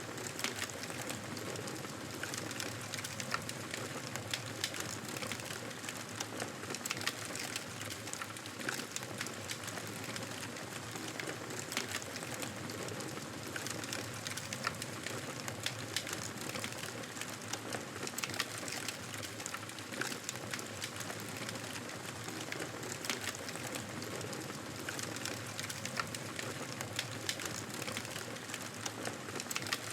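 Wood fire burning: steady crackling with frequent sharp snaps over a soft hiss.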